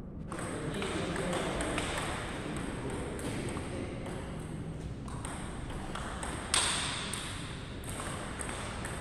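Table tennis rally: the celluloid ball clicking repeatedly off paddles and the table, with one louder hit about two-thirds of the way through.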